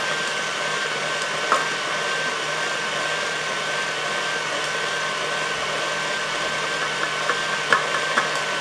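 KitchenAid Ultra Power tilt-head stand mixer running on high, its wire whip beating eggs in a steel bowl while sugar is added: a steady motor whine with a slight waver. A few light clicks come about a second and a half in and several more near the end.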